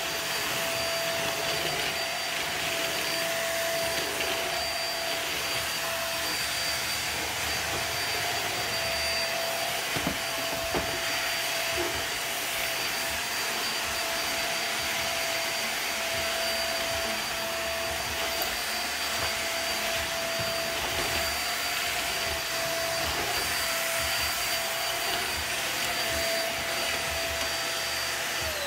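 Bagless upright vacuum cleaner running steadily on a hard laminate floor: a continuous rushing hiss with a steady motor whine, and a few light knocks about ten seconds in. Right at the end the whine starts to fall in pitch as the motor spins down.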